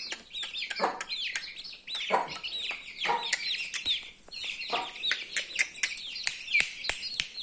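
Parrot-beak Aseel chicks peeping steadily, many quick high chirps each sliding down in pitch. Four lower clucks from a chicken break in, about a second, two, three and nearly five seconds in.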